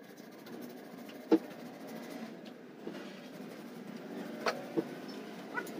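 A few sharp, isolated knocks and clicks of tools and wood being handled at a wooden shelf frame, one loud knock about a second in and three lighter ones near the end, over a steady low background hum.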